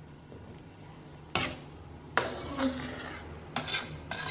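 A cooking utensil stirring in a metal pan of simmering chicken broth, clinking sharply against the pan about four times.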